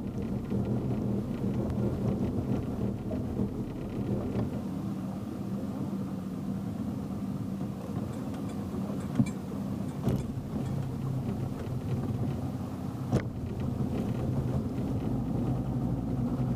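Motorboat engine running steadily with a low, even hum, with two sharp clicks about nine and thirteen seconds in.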